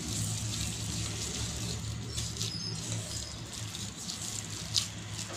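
A hand squishing and kneading grated boiled potato with spices in a steel bowl: soft, wet mashing with scattered small ticks, over a steady low hum.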